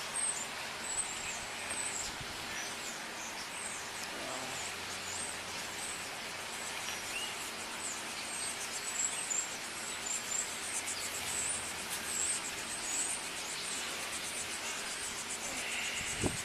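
Birds chirping and an insect trilling rapidly over a steady background hiss, with a brief low thud near the end.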